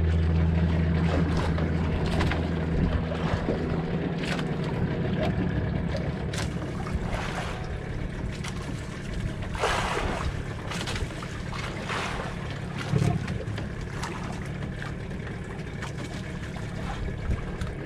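Wind blowing across the microphone and sea waves washing around a small fishing boat, with a steady low hum that fades over the first few seconds and a few louder whooshes near the middle.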